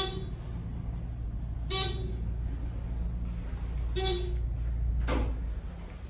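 A ThyssenDover traction elevator car travelling with a steady low rumble that dies away about five and a half seconds in as the car slows. Over it, a short electronic beep repeats about every two seconds.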